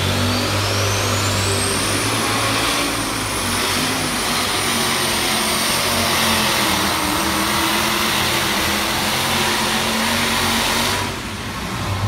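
Modified pulling tractor's engine at full throttle while dragging a weight-transfer sled down the track, with a high whine that rises over the first two seconds and then holds. The engine note drops away about eleven seconds in as the pull ends.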